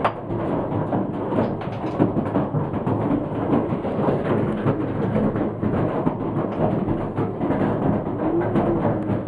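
Heavy hail falling: a dense, steady clatter of countless hailstones striking.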